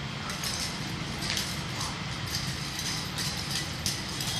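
Nunchaku being swung and spun: a run of short, sharp clicks and swishes, irregular at about three a second, over a steady low background rumble.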